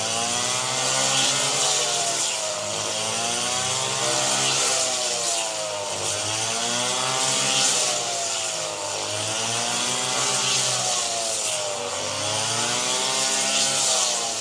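Rice-harvesting machine's engine running, its pitch rising and falling in slow swells about every three seconds, over a steady hiss.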